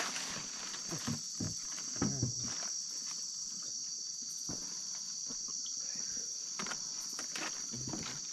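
Chorus of night insects such as crickets, a steady high-pitched drone, with scattered short knocks and taps nearby.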